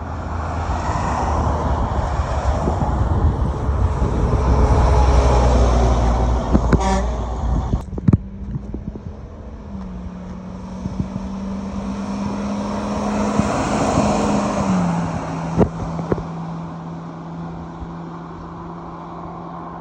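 Road traffic passing: a heavy vehicle rushes by, loudest about five seconds in, and a second vehicle passes more quietly around fourteen seconds in, with a steady low hum underneath in the second half.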